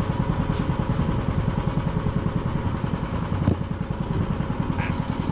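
Small engine of a karakat all-terrain vehicle idling with a fast, even chugging, and a single sharp knock about three and a half seconds in.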